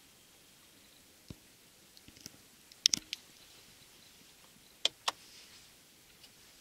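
A few sharp clicks and taps in a quiet car cabin: a single click, then a quick cluster about three seconds in that holds the loudest one, then a close pair of clicks about five seconds in. No motor is heard.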